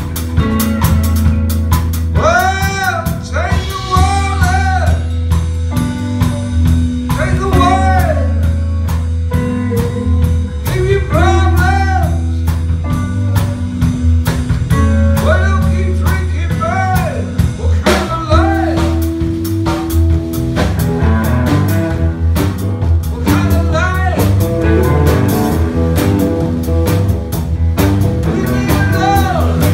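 Live blues-rock band playing: electric guitar, electric bass and drum kit, with a man singing phrases between the guitar lines.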